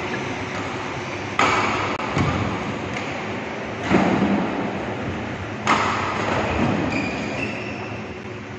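Badminton rackets striking a shuttlecock during a rally: three sharp hits, about a second and a half in, about four seconds in and near six seconds, each echoing in a large hall over a steady background rush.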